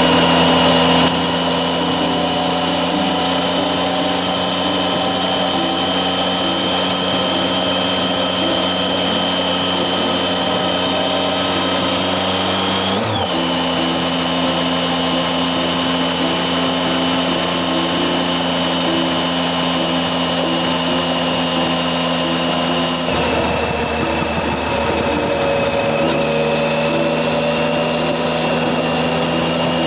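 Triumph Tiger 800 XC's three-cylinder engine running steadily at cruising speed, with wind and road noise over it and a thin high whine. The engine note breaks briefly about 13 seconds in and shifts slightly again around 23 seconds.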